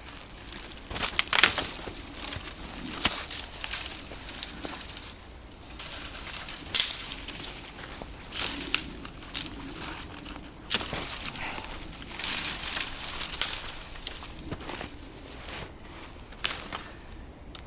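Snow crunching under a person's strides, in an uneven run of noisy scrunches about once every second or so.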